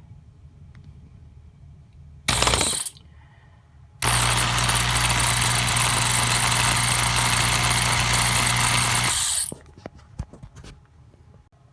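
Electric drill running: a short burst about two seconds in, then a steady run of about five seconds, drilling out the rivet posts of a diecast model car's base. Small clicks of handling follow after the drill stops.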